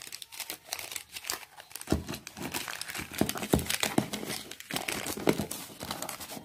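Paper and plastic packaging crinkling and rustling in irregular crackles, with a few louder ones, as hands rummage in a cardboard shipping box and pull out a paper invoice.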